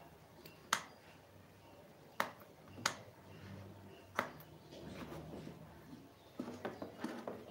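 Sharp plastic clicks and taps from a hand handling a small folding toy quadcopter: four separate clicks spread over the first four seconds, then a quick run of softer clicks and rattles near the end.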